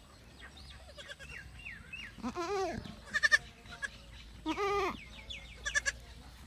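A goat bleating twice, each a wavering call of about half a second, with faint high chirps and two bursts of short, sharp, loud chirps between and after the bleats.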